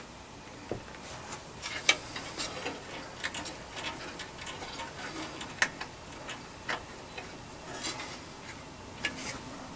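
Light, irregular clicks and taps of hands handling the metal chassis and case of a Heathkit SB200 linear amplifier.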